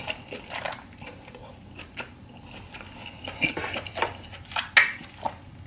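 Close-miked chewing of king crab meat in sauce: irregular wet mouth clicks and smacks, the loudest near the end.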